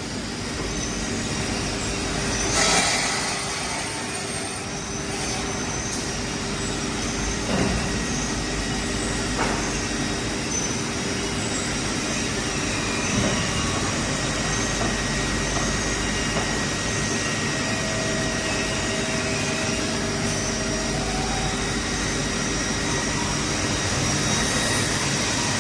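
CNC pallet-leg cutting saw machine running: a steady motor hum with a high whine, and a few brief louder moments, the strongest about three seconds in.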